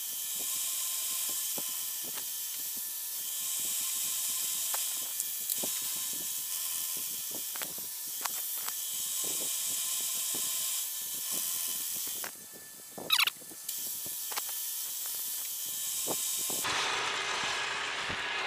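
End mill cutting into a metal block on a milling machine: a steady high hiss of the cut with scattered clicks of chips. About twelve seconds in it stops briefly and gives a short wavering squeal, and near the end the hiss gives way to a duller noise.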